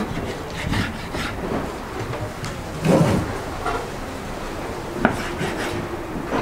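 Knife slicing raw beef on a wooden cutting board: soft cutting and rubbing with scattered knocks of the blade and meat against the board. The loudest is a thump about three seconds in, with a sharp tap about five seconds in.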